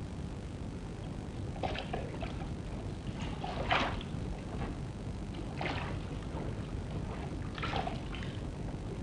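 A gondola oar working the water: a short splashing swish about every two seconds, over a steady low hiss and hum.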